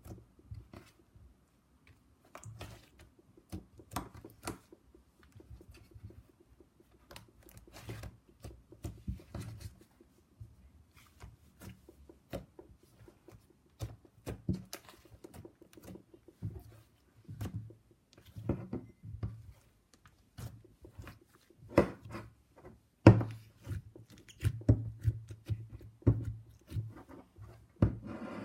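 Slime being pressed and squished by hand, making irregular sticky clicks and pops that grow busier and louder near the end.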